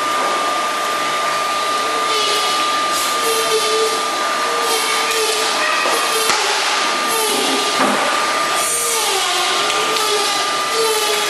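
Running machinery: a steady blower-like whirr with a constant high whine, and a wavering tone that comes and goes over it.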